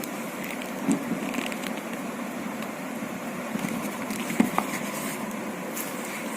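Steady background hum and hiss with a few brief clicks and rustles from handling, one about a second in and a cluster around four and a half seconds in.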